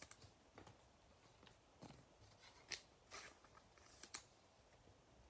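Faint, scattered swishes and light taps of cardboard trading cards being shuffled in the hands and set down on a table mat, about half a dozen short sounds.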